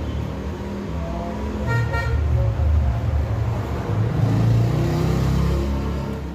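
Road traffic passing, a low rumble, with a brief vehicle horn toot about two seconds in.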